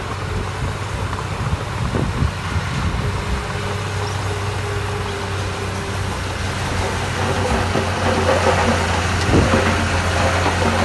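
Heavy diesel earthmoving machinery running steadily, a deep even engine hum, with a brief knock about two seconds in and another near the end; the engine gets a little louder in the second half.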